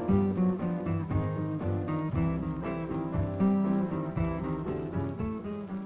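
Jingle music led by plucked guitar, with quick-changing notes over a bass line, trailing off near the end.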